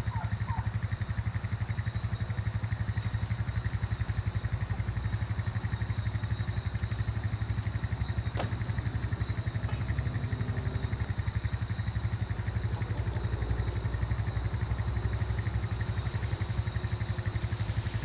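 A vehicle engine running steadily at an even speed, a close, low, fast-pulsing hum. A single click sounds about halfway through.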